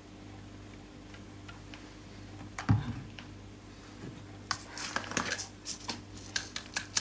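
Kitchen items being handled on a counter: a single knock about three seconds in, then a run of light clicks and rattles from about halfway on, over a faint steady hum.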